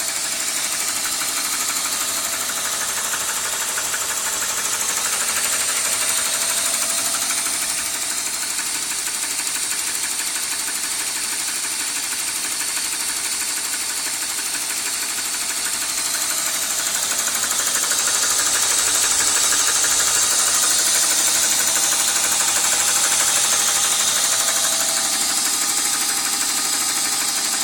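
1998 BMW 528i's straight-six engine running, with a rapid ticking, tapping noise over it; the owner wonders whether the VANOS unit is the cause.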